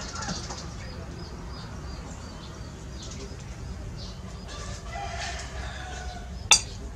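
Domestic chickens clucking and calling in the background. Near the end comes a single sharp clink of a metal utensil against a dish.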